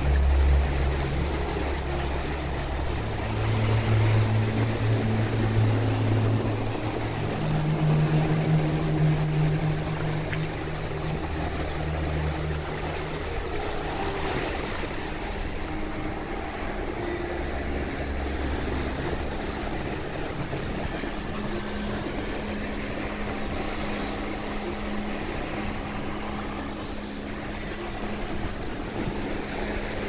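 Small waves breaking and washing up the sand at the shoreline, under a low steady drone whose pitch shifts every few seconds.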